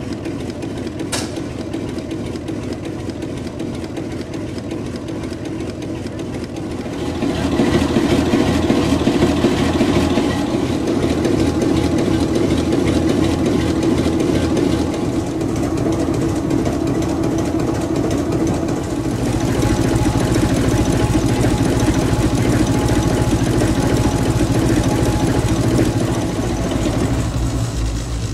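Large vintage multi-cylinder diesel engine running at a steady speed, with an even rhythmic beat of its firing strokes. It gets louder from about seven seconds in and deeper-toned from about nineteen seconds.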